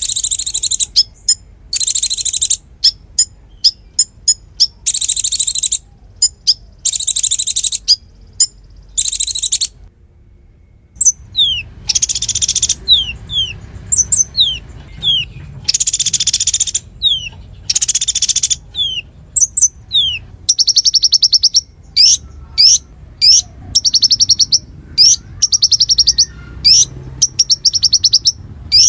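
Konin songbird singing loudly in rapid-fire full song: high buzzy trills about a second long alternate with sharp, quickly falling chirps, with a short pause about ten seconds in. In the last third the trills come shorter and faster, one after another.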